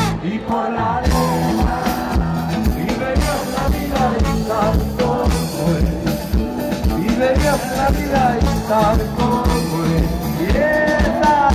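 Live band playing a rock song with drums keeping a steady beat under electric and acoustic guitars.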